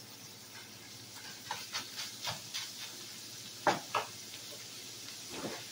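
Ground beef sizzling steadily as it browns in a skillet, with a few light scrapes and clicks of a spatula against the pan and two sharper knocks about two-thirds of the way through.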